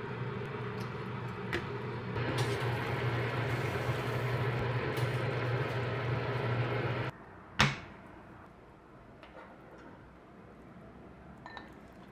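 Steady kitchen appliance hum with a rushing noise that grows fuller about two seconds in and cuts off abruptly about seven seconds in. Half a second later comes a single sharp click, then only faint room noise.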